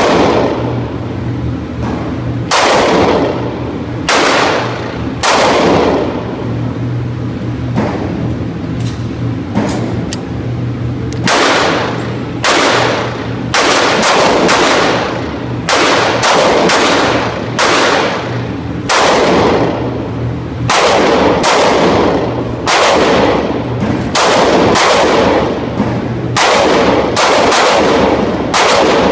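Glock 27 pistol firing .40 S&W Winchester White Box jacketed hollow points: a long string of loud single shots, irregularly spaced about a second apart with a few short pauses, each followed by a brief echoing tail.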